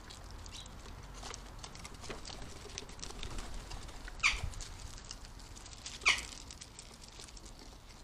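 Western jackdaws pecking and shuffling on a wooden bird table: a scatter of small beak taps and scrapes, with two louder sharp sounds about four and six seconds in.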